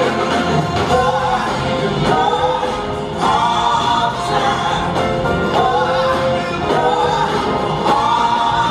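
A live band playing a soul-rock song, with a male lead vocal and other band members singing along over trumpet, saxophone, electric guitar and drums, recorded from the audience.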